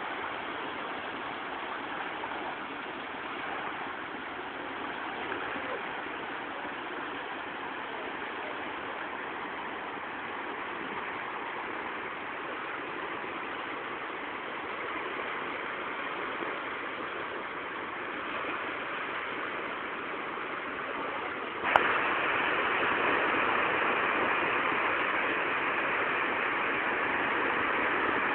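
Small waves breaking on a sandy beach: a steady rush of surf. About three quarters of the way through there is a sharp click, and the rush is louder after it.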